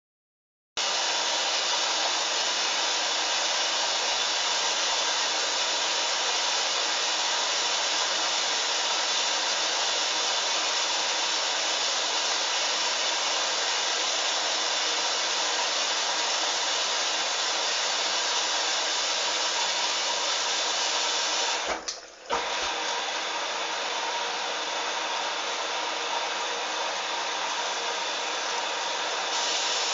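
Hoover Dynamic washing machine taking in water at the start of its first rinse: a steady rushing hiss of water filling through the drawer. It cuts out for a moment about two-thirds of the way through, then carries on.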